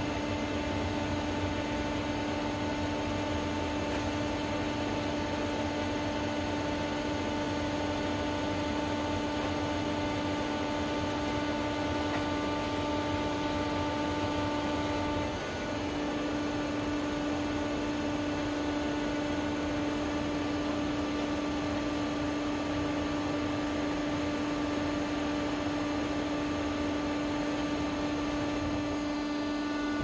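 Pusher furnace machinery running with a steady electric hum, a constant pitched drone over even noise. About halfway through, the drone dips briefly and one of its higher tones stops.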